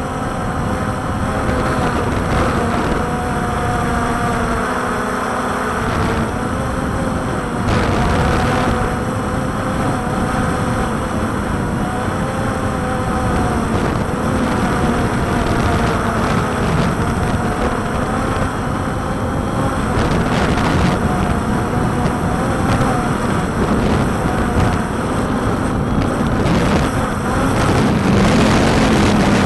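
Walkera Tali H500 hexacopter's electric motors and propellers whining, several pitches drifting up and down as the motors keep adjusting to hold it steady in strong gusty wind, over a heavy rumble of wind on the microphone.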